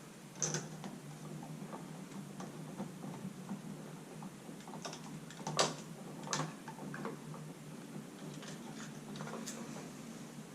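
Scattered light clicks and taps from handling a dimmer switch and its wires during wiring. The sharpest clicks come about half a second in and about five and a half seconds in.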